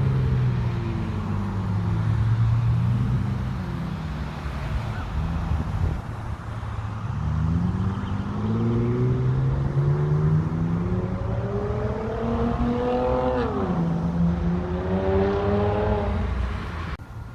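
Motor vehicle engine rising and falling in pitch as it accelerates. About thirteen seconds in the pitch drops sharply and then climbs again, like a gear change.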